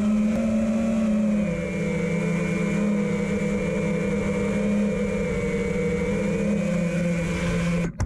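FPV quadcopter's motors and propellers humming at a steady, low throttle, cutting off suddenly near the end as it touches down and the motors stop.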